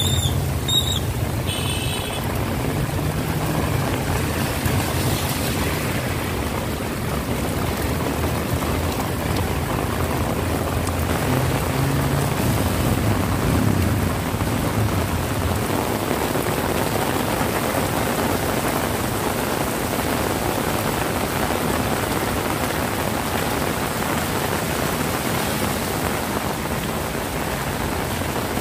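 Heavy rain falling steadily on a paved street, an even hiss. Through the first half a low rumble of passing motorcycle engines runs under it, fading out about sixteen seconds in.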